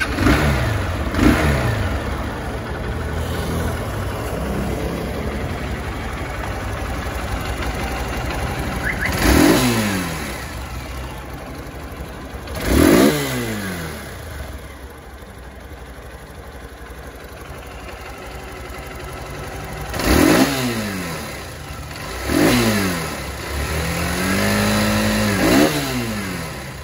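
Hero Hunk 200R single-cylinder motorcycle engine idling, revved sharply about four times and each time dropping back to idle. Near the end it is held at high revs for about two seconds before falling back.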